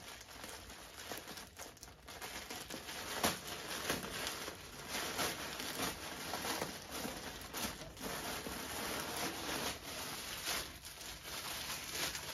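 Plastic packaging crinkling and rustling as it is unwrapped from newly delivered clothing, with scattered sharp crackles.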